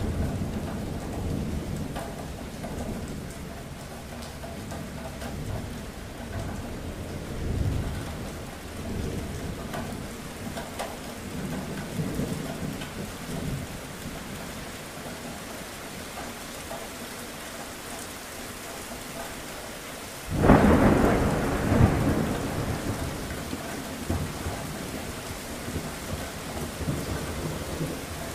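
Thunderstorm: steady rain with low thunder rumbling, then a sudden loud thunderclap about twenty seconds in that rolls on for a few seconds.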